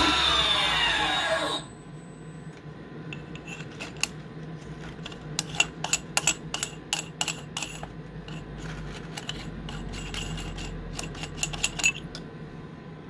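Mini lathe spindle driven by a hybrid servo motor through a 2:1 gear, whining as it winds down to a stop with its pitch falling over the first second and a half. A run of light metallic clicks and clinks follows as the freshly threaded aluminium part is handled in the chuck.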